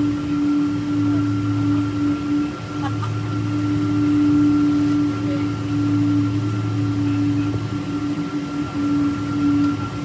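Steady cabin drone inside a Boeing 777-200 on the ground with its engines at idle: a constant low hum with a steady tone and a fainter higher whine over it.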